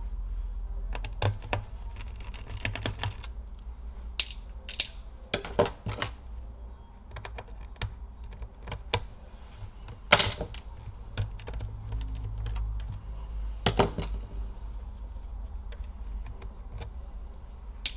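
Irregular small clicks and taps of a screwdriver, loose screws and the laptop's plastic casing being handled while screws are removed from the underside of an Asus X58L laptop, with a few sharper knocks.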